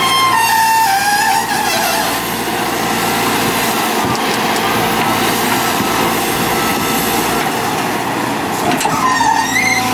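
Kobelco hydraulic excavator's diesel engine running steadily under load as it swings and dumps a bucket of soil into a dump truck, with a whine that slides down in pitch at the start and rises again near the end.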